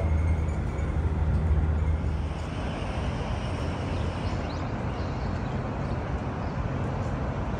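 Steady low vehicle rumble with a hum that eases off about two seconds in, leaving a steady rushing noise.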